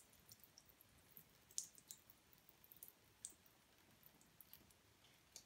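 Near silence with faint, scattered clicks and squeaks from a plastic syringe plunger being pushed to force water through a small filter into a sink.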